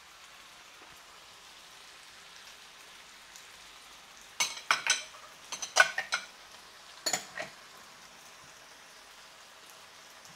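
Squid and vegetables frying in a nonstick pan with a low, steady sizzle. From about four to seven and a half seconds in, a wooden spatula knocks and scrapes against the pan in a quick cluster of sharp strokes as the stir-fry is tossed.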